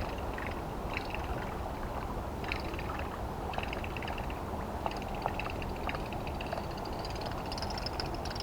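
A topwater lure being retrieved across the water surface: a steady gurgling splash with a repeated high metallic jingle and clicking over it, growing louder near the end.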